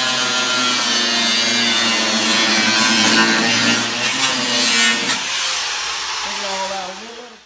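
A power tool running with a steady hum and a loud hiss, then spinning down about five seconds in.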